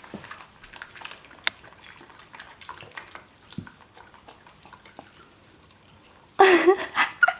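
Corgis eating soft homemade dog food: irregular wet smacking, licking and chewing clicks. A woman's voice starts near the end.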